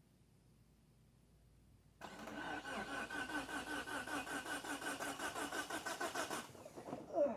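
Mitsubishi Eclipse GST's starter motor, jumped with a screwdriver, cranking the engine with the car in gear so that the starter drags the car along; the engine does not fire. The cranking is steady, about five pulses a second, starting about two seconds in and lasting about four and a half seconds, then it cuts off with a short falling whine.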